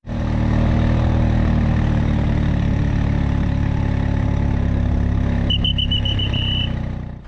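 Vehicle engine running steadily at low speed while driving along behind the cattle. About five and a half seconds in, a quick run of high, evenly spaced beeps lasts about a second.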